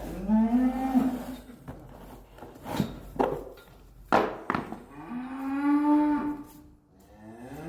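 Cattle mooing: two long calls, one at the start and another about five seconds in, with a few sharp knocks in between.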